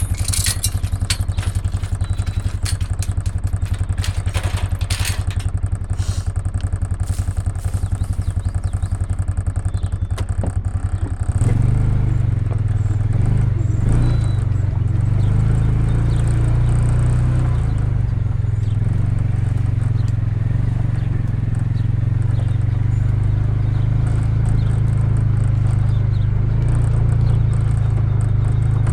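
Farm vehicle engine running steadily, with some clattering over the first few seconds; about eleven seconds in the engine gets louder and holds there.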